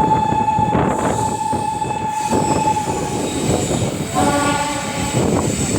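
Indian Railways train running on the track with a steady rumble from the ICF coaches, while a train horn sounds. First comes one held single-pitch blast lasting about three seconds, then about four seconds in a shorter, fuller multi-tone horn.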